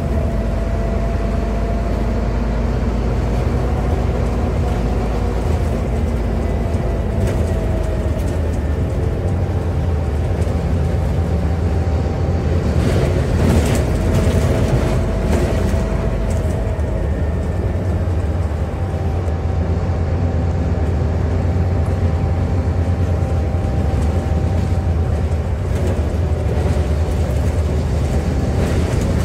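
Scania N280UD double-decker bus heard from inside while driving: the nine-litre Scania DC09 diesel drones low beneath a steady whine that steps in pitch a few times. A burst of rattling comes about halfway through.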